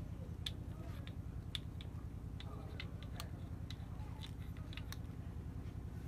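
Irregular sharp clicks and taps, a few a second, as a flashlight and rough jade stones are handled against each other, over a steady low hum.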